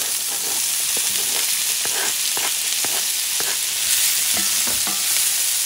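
Diced chayote, onion and bell peppers sizzling in hot olive oil in a cast iron skillet, a steady frying hiss, with a wooden spoon knocking and scraping against the pan as the vegetables are stirred.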